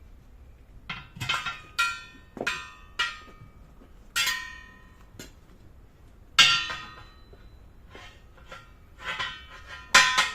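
Irregular metal-on-metal clanks and clinks with a short ringing after each, about a dozen over the stretch. They sound like steel parts or tools being knocked together and set down, and the loudest strikes come about six seconds in and near the end.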